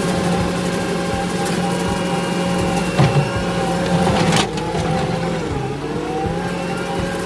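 Kubota SVL65 compact track loader's diesel engine running steadily at work, with a sharp knock about three seconds in. Past the middle its pitch sags for a second or two and then climbs back.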